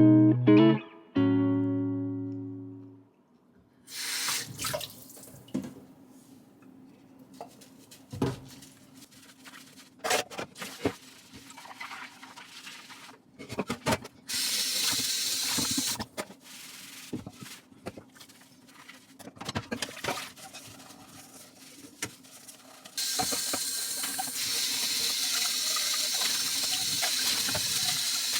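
A guitar phrase ends and fades. Then come scattered clinks and knocks of things being handled and short spells of running water. About two-thirds of the way in, a tap starts running steadily and keeps on.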